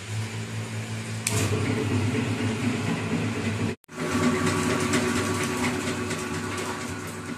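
Water pouring from a tap into a plastic bottle, over the steady hum of an electric water pump motor. The sound breaks off briefly a little before the middle.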